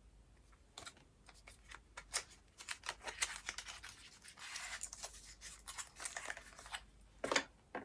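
A lipstick and its small packaging handled and opened by hand: a run of light clicks, scrapes and rustling, busiest in the middle, with a soft rubbing hiss about halfway through.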